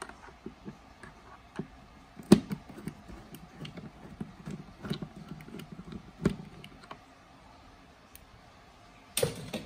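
Flat screwdriver and plastic refrigerator parts clicking and knocking as fasteners on the ice maker housing are worked loose, with a sharp knock about two seconds in, another about six seconds in, and a short rustling scrape near the end.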